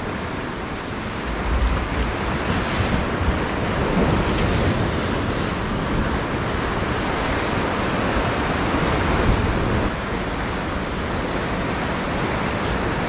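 Ocean surf breaking and washing over lava rocks, a steady rushing wash, with wind buffeting the microphone.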